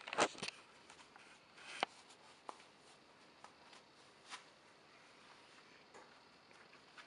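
Leather work gloves being pulled onto the hands: a brief rustle and scuffing at the start, then a few faint taps and rubs.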